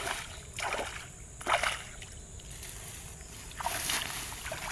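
Hands scooping and sloshing in a shallow hole of muddy swamp water, several short wet sloshes with pauses between.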